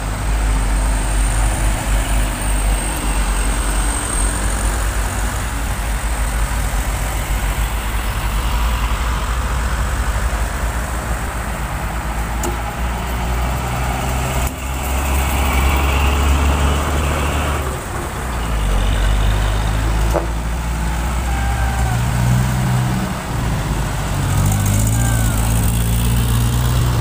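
Diesel trucks and cars driving slowly past one after another, a continuous low engine rumble with tyre noise. It swells as the tanker truck goes by about halfway through, and a steady engine hum stands out near the end.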